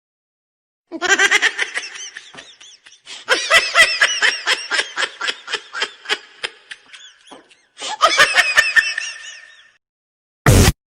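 Laughter sound effects: three laugh clips one after another, each a run of quick ha-ha pulses. A short, loud noise burst follows near the end.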